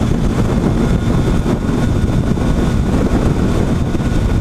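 Heavy wind rush over the microphone on a Triumph Tiger 800 XCa at highway speed, over the steady hum of the motorcycle's inline-three engine running at cruising revs.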